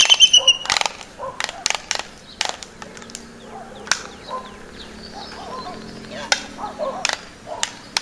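Laysan albatross pair's courtship dance: bill clacking, heard as irregular sharp clacks, several in the first couple of seconds, sparser through the middle and picking up again near the end.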